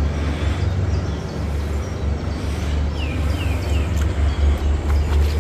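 Wind buffeting the microphone as a loud, unsteady low rumble, with three short falling bird chirps about three seconds in.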